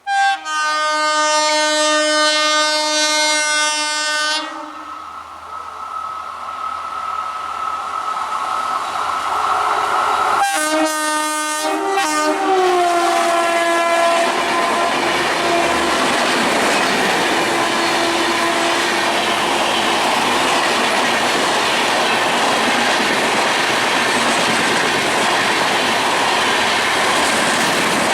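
An Indian Railways train sounds a long horn blast of about four seconds, then a second blast whose pitch drops as the train passes. After that comes the steady rush and clickety-clack of the coaches rolling by.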